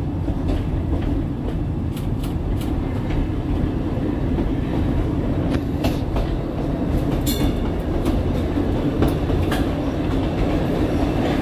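Vintage trolley car running along the track, heard from inside its cab: a steady low rumble of wheels and running gear, with scattered clicks as the wheels cross rail joints.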